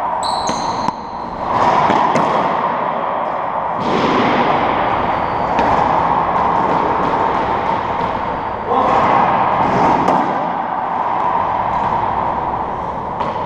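Racquetball court noise between rallies: a steady, loud, echoing din with a few dull thuds of the rubber ball, about two, four and nine seconds in. A brief high squeak, typical of a court shoe on the hardwood floor, comes about half a second in.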